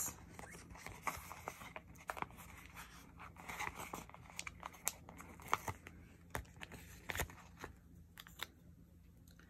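Faint handling of a paper sheet of foil planner stickers: soft crinkling as the sheet is bent, a sticker peeled off its backing with tweezers, and scattered small ticks and taps, thinning out near the end.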